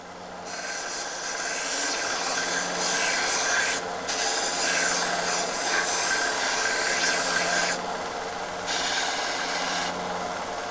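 Steel bayonet part ground against a running bench sander. The motor hums steadily under a loud abrasive rasp that starts about half a second in and breaks off briefly twice, once near four seconds and again for about a second around eight seconds in, as the metal is lifted off.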